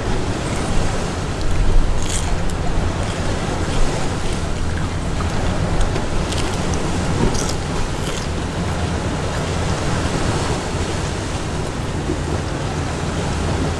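Steady wash of ocean waves against the rocks, with wind rumbling on the microphone. A few short crunches of crispy onion rings being chewed come through, around two seconds in and again about seven seconds in.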